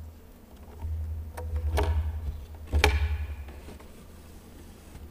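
Handling sounds at a wooden pulpit picked up by the microphones: a low rumble of movement and a few sharp knocks, the loudest about three seconds in.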